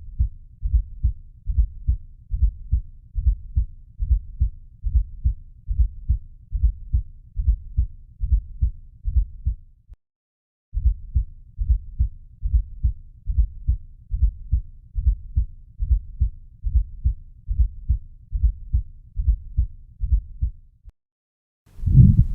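Heart sounds heard through a stethoscope: a regular rhythm of low, dull beats. It breaks off briefly about ten seconds in, and a louder run of beats starts near the end.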